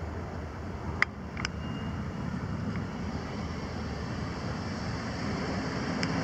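Steady low wind and road noise, with two sharp clicks about a second in. Cars pulling up and starting across a railroad grade crossing, the noise rising slightly toward the end.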